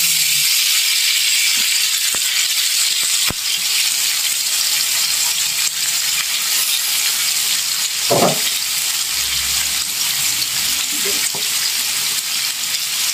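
Sliced kepayang nuts and fermented fish frying in hot oil in a metal wok, a steady sizzle. Stirring with a metal spatula adds a few sharp clicks against the pan, and there is a brief scrape about eight seconds in.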